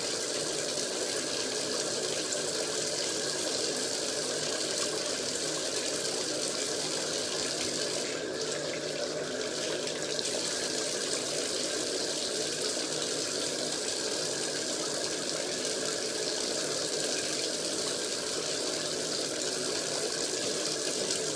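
Water running steadily from a bathtub tap into the tub, a constant hiss whose highest part thins briefly about eight seconds in.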